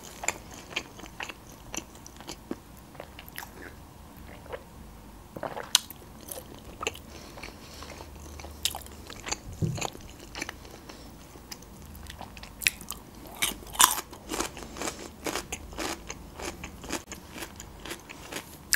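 Close-miked mukbang eating sounds: chewing and biting food, with irregular wet mouth clicks and smacks.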